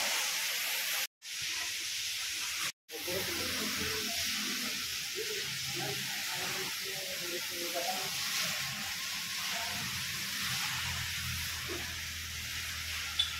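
A steady hiss with faint, indistinct voices in the background. The sound cuts out briefly twice within the first three seconds.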